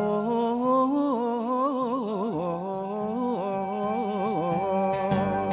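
A voice singing a Sephardic piyut, a sacred Hebrew song of the Saharan Maghreb tradition, in a wavering, heavily ornamented melismatic line. A steady held note sounds beneath it from about halfway through.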